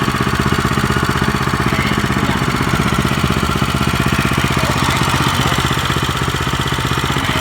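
Engine of a used Japanese walk-behind tiller running steadily, with an even, rapid firing beat.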